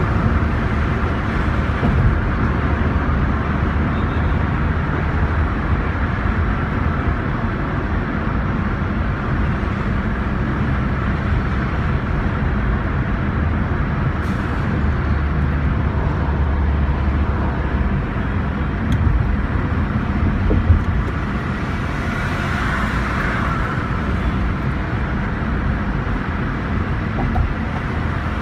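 Steady low rumble of tyre and engine noise heard from inside the cabin of a moving car, with a brief swell about two-thirds of the way through.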